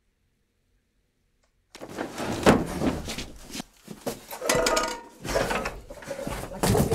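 Frantic rummaging: objects being shoved, knocked and dragged about in an uneven run of thuds and clatter. It starts suddenly after about a second and a half of dead silence.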